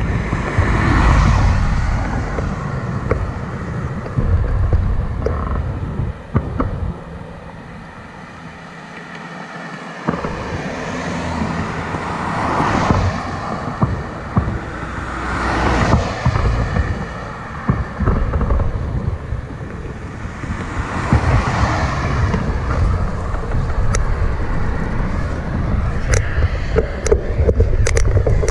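Cars passing one after another on a country road, about four of them, their tyre and engine noise swelling and fading. A steady low rumble of wind buffets the microphone, easing off for a few seconds partway through.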